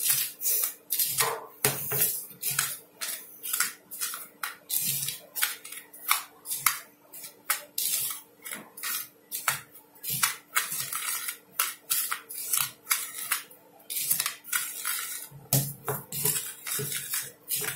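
A thin rod stirring a dry powder of potassium nitrate and sugar in a plastic cup: irregular scrapes and clicks against the cup's sides and bottom, two or three a second.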